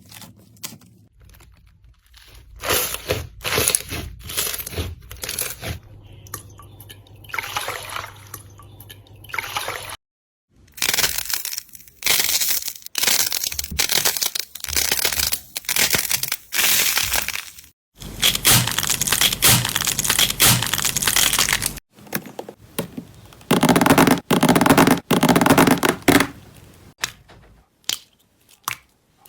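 Slime being squeezed and worked by hand, making wet squishes with many small pops and clicks. It comes in several stretches, cut apart by brief silences about 10, 18 and 22 seconds in.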